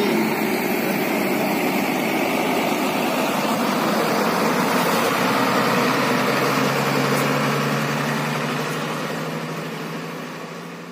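Coach bus engine running as the bus pulls away, steady at first and then fading as it drives off. A low steady hum comes up over the last few seconds.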